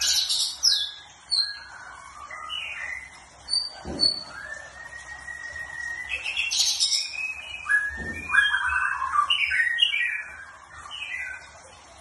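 A caged songbird singing a varied song of quick chirps and whistles, with one long whistle held steady around the middle and busy runs of notes after it. Two short dull thumps come about four and eight seconds in.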